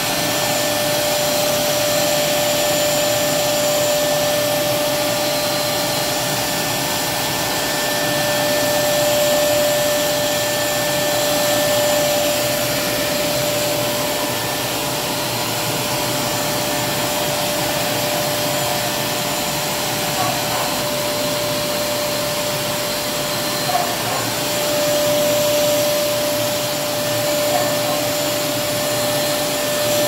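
WAP GTW 10 1400-watt wet-and-dry vacuum cleaner running steadily with a constant whine, its floor nozzle sucking water off wet tiles. The level swells gently now and then, with a couple of faint knocks in the second half.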